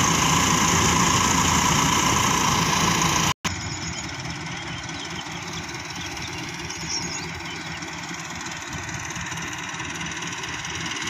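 Tractor engine driving a wheat thresher, running steadily under load. About three and a half seconds in the sound breaks off for an instant, and the machine then goes on quieter and farther off.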